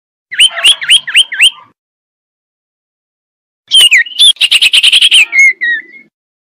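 Male common iora calling: a quick series of five curved whistled notes, then about two seconds later a longer phrase with a fast trill that trails off into a few lower notes.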